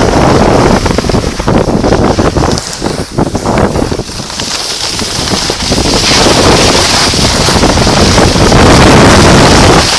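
Loud wind rumble buffeting the microphone from the rush of air on a fast run down a groomed ski slope. A higher hiss grows louder about six seconds in.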